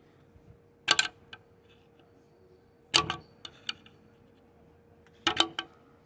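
Three sharp metal clicks about two seconds apart, each followed by a few lighter ticks, as the locking tabs of the washer on the fan pulley's nut are worked up.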